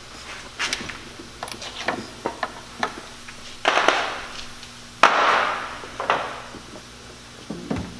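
Light knocks and clicks from the rear trunk trim and body panels of a Pontiac Fiero being handled, then three louder bumps about a second apart, each trailing off over about half a second.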